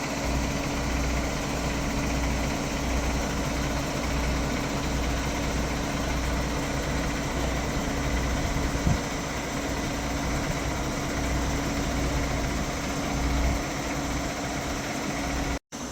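2017 New Holland CX8.80 combine harvester's 8.7-litre diesel engine idling steadily, with a low pulsing throb under a constant hum. The sound cuts out for a moment near the end.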